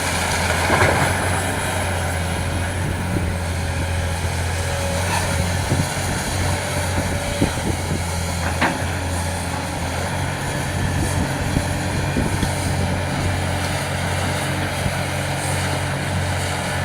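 Hitachi EX870 hydraulic excavator's diesel engine running steadily under working load, with scattered knocks and one sharp clank about halfway through.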